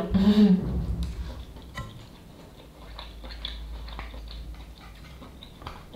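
Eating instant noodle soup with chopsticks and a wooden ladle: light scattered clicks of the utensils and quiet chewing, after a short spoken 'hein' at the start.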